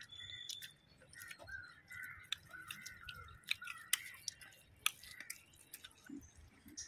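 A person chewing fried prawns eaten by hand, with irregular wet mouth clicks and smacks.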